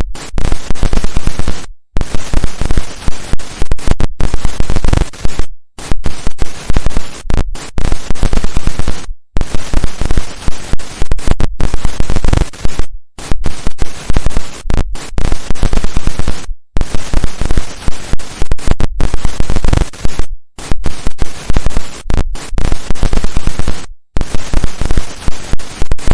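Loud, crackling static hiss of an old analogue television tuned to no signal. It is broken by short silent dropouts every two to four seconds.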